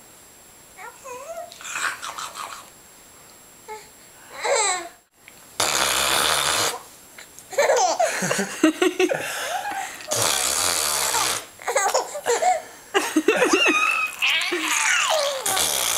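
Five-month-old baby laughing and squealing in repeated bouts, after a few seconds of softer cooing babble. Loud breathy bursts come every four to five seconds, each followed by laughter.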